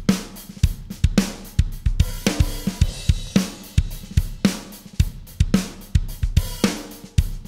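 Sampled drum kit groove (kick, snare, hi-hats and cymbals) playing a steady beat, heard through an analog bus compressor on the stereo bus, with the compression plainly audible.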